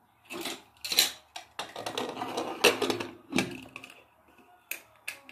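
Aluminium pressure cooker lid being fitted and clamped shut: a run of uneven metal clinks and knocks, then a few lighter clicks near the end.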